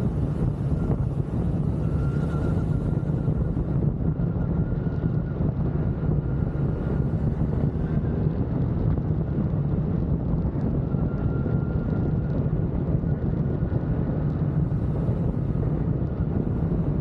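BMW R1300GS boxer-twin engine running steadily while the bike is ridden, with wind noise on the microphone.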